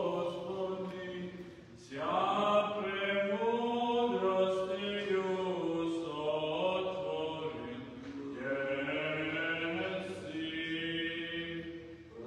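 Man's voice chanting an Orthodox psalm in sustained, slowly moving notes, with short breaks about two seconds and about eight seconds in.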